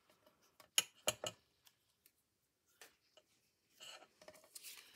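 Craft scissors snipping through a paper card: three quick, sharp snips about a second in, then two fainter clicks and a soft rustle of paper near the end.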